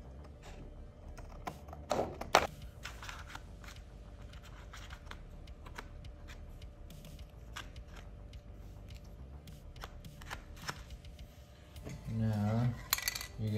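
Scissors cutting thin clear plastic sheet, and the cut plastic discs being handled: scattered sharp snips and crackles, the loudest about two seconds in.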